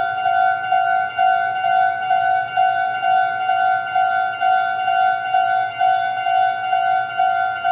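Japanese level-crossing warning bell ringing its electronic "kan-kan" alarm: one bright tone struck over and over, just over two rings a second, steady throughout.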